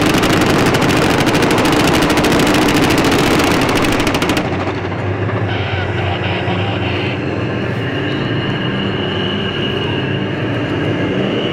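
Type 74 tanks' air-cooled V10 diesel engines and steel tracks on the move. For about the first four seconds there is a loud, dense rattle of many fast even strokes, then it settles to a steady engine note with a high whine over it.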